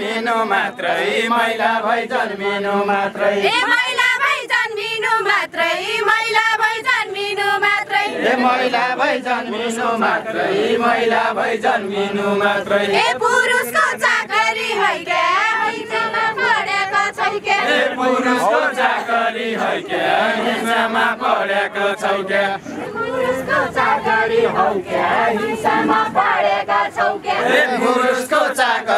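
A group of men and women singing a Nepali folk song (dohori) together in unison, many voices chanting repeated lines without pause.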